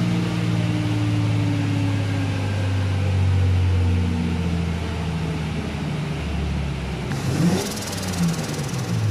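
Toyota 2JZ-GTE straight-six with a large single turbo, running on a chassis dyno with its note slowly falling as the rollers wind down toward idle. About seven seconds in, a hiss starts alongside the engine.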